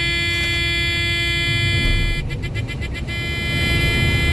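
A combine's warning horn sounds a steady, buzzy tone over the low rumble of the running combine. About two seconds in it stutters briefly, then holds steady again. It is an alert meant to get the operator's attention.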